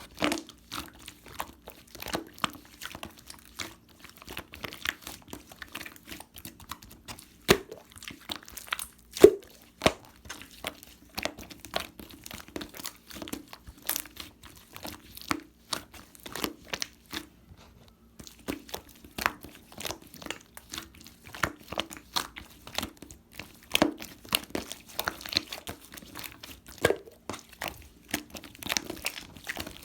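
Slime being squeezed and pressed by hand, making irregular crackling clicks and pops, with a brief lull about two-thirds of the way through.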